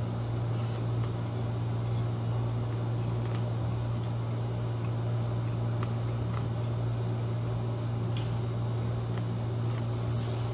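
Steady low mechanical hum, with faint scattered clicks and mouth smacks of someone eating rice and pork by hand and chewing.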